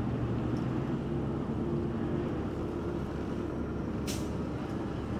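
Heavy tow truck's diesel engine running steadily under load while its boom winch lifts a suspended car, with one short click about four seconds in.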